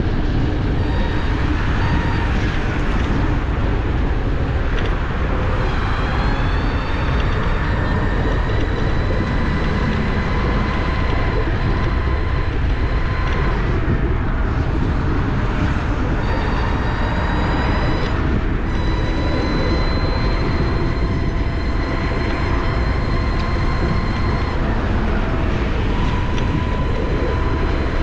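Fiido Q1 electric scooter's brushless hub motor whining steadily at about 35 km/h, its pitch drifting slightly with speed, under heavy wind rumble on the microphone.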